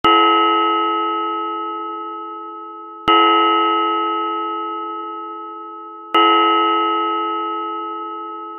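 Church bell struck three times, about three seconds apart, each stroke ringing on with several pitches and slowly fading before the next.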